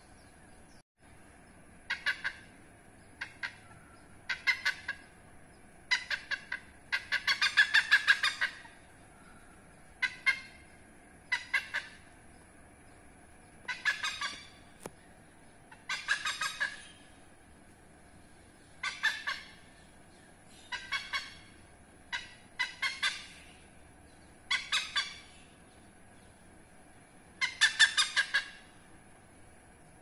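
Oriental pied hornbill calling: about a dozen short bursts of rapid, evenly repeated notes, roughly one burst every two seconds. The bursts near the middle and near the end are the loudest.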